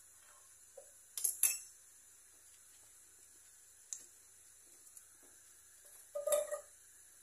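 Kitchen knife and plastic cutting board clattering: two sharp knocks about a second in, a light tick later, then a short scraping clatter near the end as chopped onion, carrot and pepper are scraped off the board into a metal pot.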